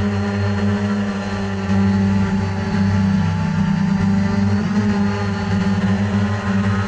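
ZLRC SG906 Pro quadcopter's brushless motors and propellers humming steadily in flight, recorded close up by a GoPro mounted on the drone.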